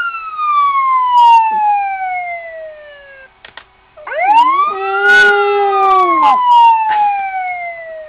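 Siren wailing in two long sweeps, each rising quickly and then falling slowly, with a short break between them. During the second sweep a Japanese Chin puppy howls along in a lower, arching tone.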